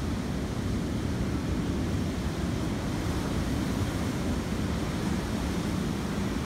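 Ocean surf breaking and washing around a rock jetty and up the sand: a steady, deep wash of water.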